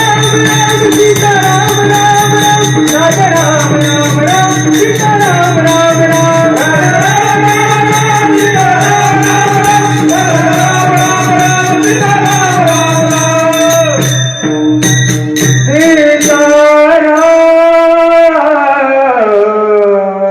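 Male voice singing a drawn-out devotional kirtan melody over a steady drone, with a fast, even jingling percussion beat. The beat stops about fourteen seconds in. The voice then holds one long note that slides downward near the end.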